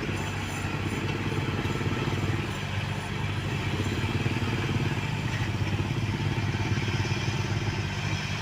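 Diesel engines of road-paving machinery running steadily with a fast, even low rumble and some light clatter.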